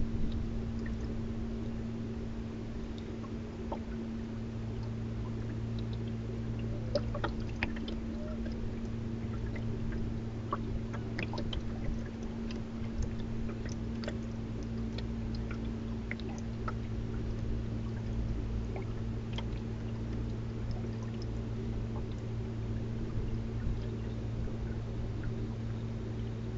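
Water lapping and splashing against the hull of a small boat under way, with scattered small ticks of splashing droplets, over a steady low hum.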